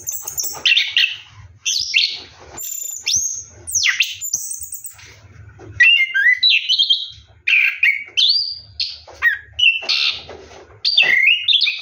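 Orange-headed thrush (anis kembang) singing a continuous 'ngeroll' song: quick, varied whistled and chattering phrases that follow one another with only short gaps.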